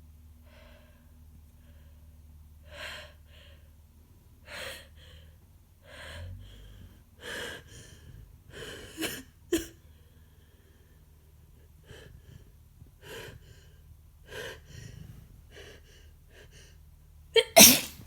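A woman with a congested head cold gasping in short, catching breaths again and again as a sneeze builds, ending in one loud sneeze near the end.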